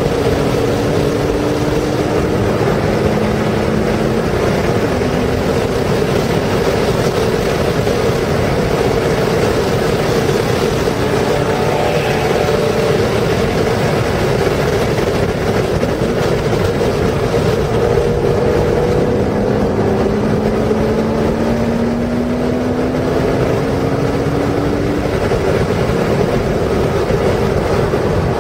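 Porsche engine running hard under throttle, heard from inside the cabin over heavy wind and tyre noise. Its pitch rises slowly at the start and again in the second half as the car accelerates.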